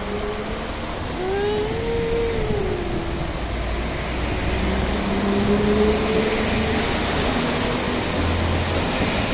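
Transport for Wales Class 197 diesel multiple unit pulling out and accelerating past: engines rumbling and revving, their note rising and falling, with a thin high whine above, growing louder.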